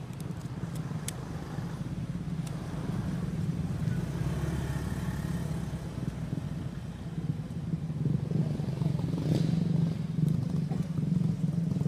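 Steady low engine drone, like a motor running nearby, with a few sharp faint clicks.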